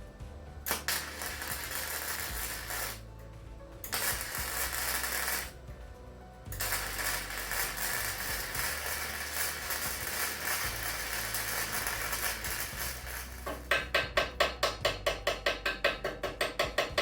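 Background music with a steady bass line, over bursts of workshop power-tool noise that start and stop several times. Near the end comes a rapid even pulsing, about four beats a second.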